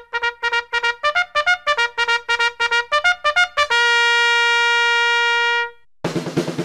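Background music: quick, short repeated notes, then one long held note lasting about two seconds, then a drum-led track starts near the end.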